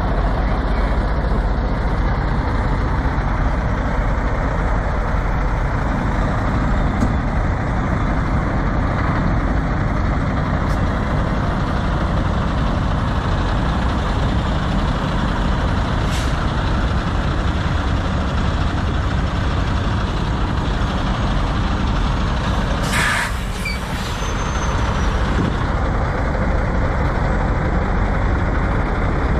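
Steady running of idling diesel semi trucks, with a short sharp hiss of released air about 23 seconds in, as from a truck's air brake system.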